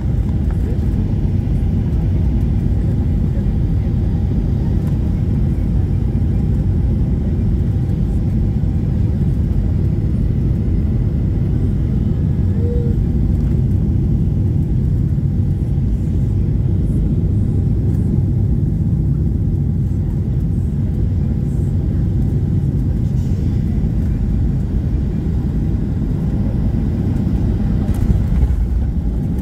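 Steady low rumble of engine and airflow noise inside a Boeing 737-800 cabin during final approach. Near the end there is a brief thump as the wheels meet the runway.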